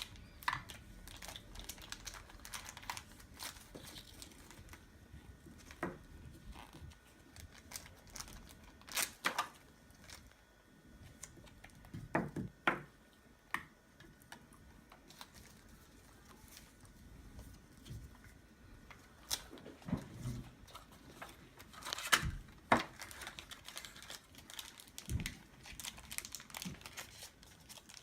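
Plastic toy packaging crinkling and tearing as small toys are unwrapped and handled, with scattered sharp clicks and taps.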